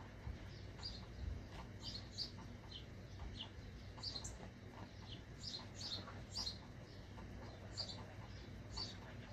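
Permanent marker squeaking on an inflated rubber balloon: many short, high squeaks in an irregular run as the tip is scrubbed back and forth to colour in a patch, over a low steady hum.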